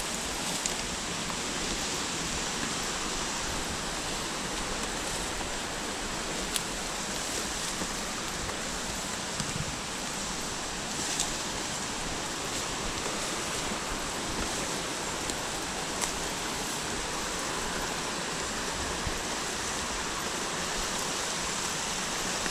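Steady rushing of a flowing river, with a few faint ticks over it.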